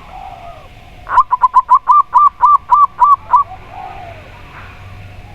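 Zebra dove (perkutut) singing a quick run of about ten short cooing notes over a little more than two seconds, starting about a second in.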